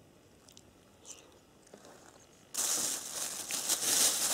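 A clear plastic bag crinkling loudly as it is grabbed and lifted, starting suddenly about two and a half seconds in; before that, only a faint click about a second in.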